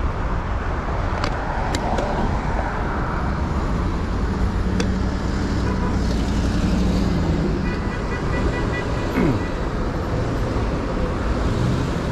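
Steady city road-traffic noise heard from a moving bicycle: a constant low rumble of cars, with a few sharp clicks in the first five seconds.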